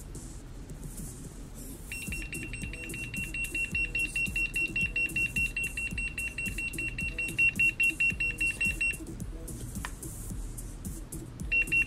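Fast, high-pitched electronic beeping from the Boosted Board remote, the alert of a remote whose battery is dead. It starts about two seconds in, stops for a couple of seconds, and starts again near the end.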